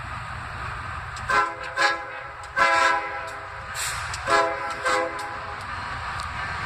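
Freight locomotive's air horn sounding five blasts in about four seconds, the third the longest, over the low rumble of the approaching train.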